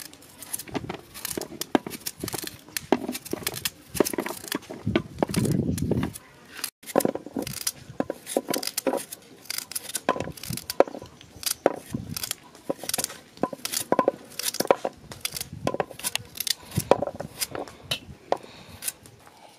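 Kitchen knife cutting through a raw carrot held in the hand, a crisp snap with each slice in a quick, irregular run, with slices dropping into an aluminium basin.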